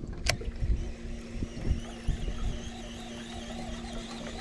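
Steady low electric hum from a small battery-powered boat motor, with wind buffeting the microphone and one sharp click shortly after the start.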